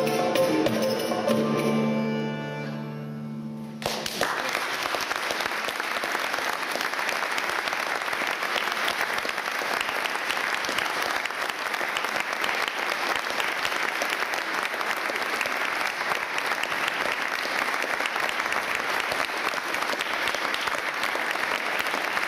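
Small medieval bagpipe playing a melody over its steady drone, fading out and stopping about four seconds in. It is followed by sustained audience applause.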